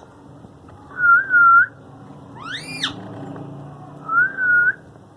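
Indian ringneck parakeet giving two wavy, up-and-down whistles, about a second in and again near the end, with a short sharp rising-then-falling call between them.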